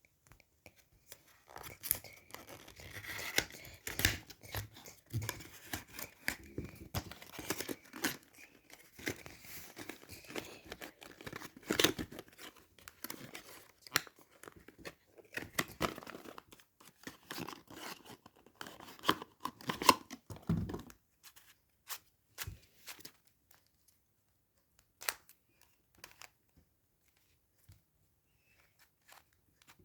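Packaging of a puzzle cube being torn open and crinkled, a dense run of tearing and rustling. Near the end it thins out to a few scattered clicks and taps.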